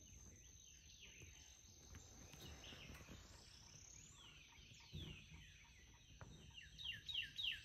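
Faint wild birds calling in swampy woods: scattered short falling chirps, a rising whistle midway and a quick run of falling chirps near the end. There is a soft low bump about five seconds in.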